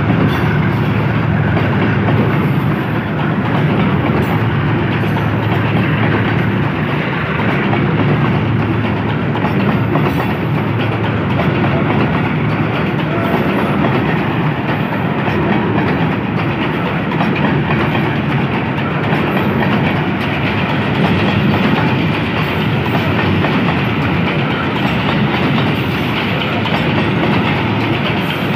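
Train of coal hopper wagons rolling past close by, a steady sound of steel wheels running over the rails.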